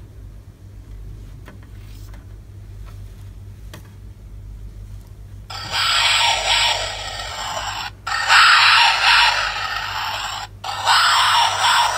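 GUND Talkiez lion plush's sound box playing a recorded lion roar through its small speaker when its belly is squeezed, three roars in a row, each about two and a half seconds long, starting about five seconds in.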